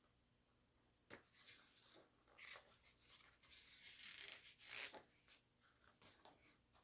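Faint rustling and flicking of glossy photo book pages turned by hand, a few soft paper-on-paper rubs spread through the quiet.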